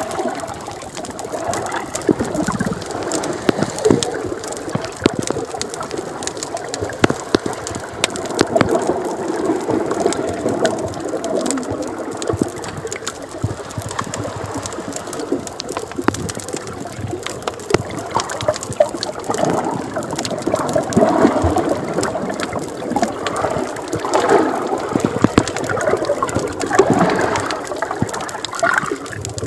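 Underwater sound picked up by a camera held below the sea surface: muffled water gurgling and bubbling, with frequent small clicks and crackles throughout.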